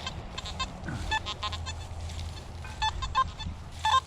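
Nokta Simplex+ metal detector giving short buzzy beeps as its coil is swept over the ground, a few around a second in and a quicker run near the end. These are signals the detectorist reads as iron.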